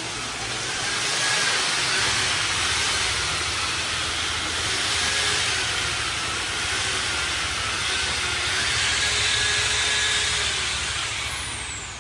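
Drain-cleaning machine running while clearing a grease-clogged kitchen drain: a steady motor hum under a loud hiss, with a faint whine wavering up and down in pitch. It swells about a second in and eases off near the end.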